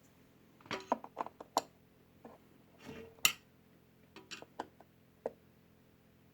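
Handling noise: a dozen or so irregular sharp clicks and knocks of hard parts being moved, in small groups, the loudest a little over three seconds in.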